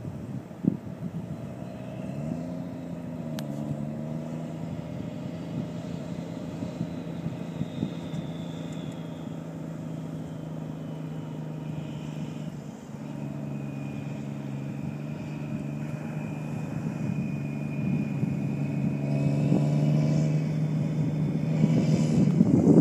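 Engine of an amphibious personnel carrier driving across beach sand: a steady low drone that rises briefly in pitch a couple of seconds in and grows louder near the end as the vehicle comes closer.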